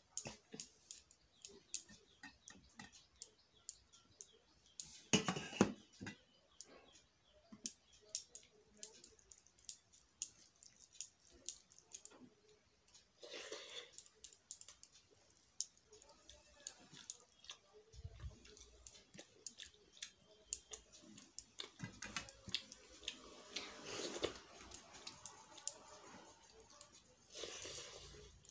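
Eating rice by hand: fingers mixing rice with dalma on a steel plate, and chewing with many small clicks, broken by a few short louder rustles.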